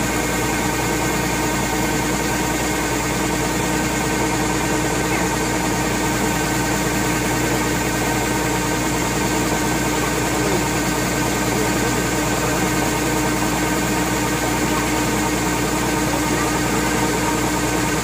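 Heavy farm machine's engine and drive running steadily, with several constant mechanical whines over a wide, even noise.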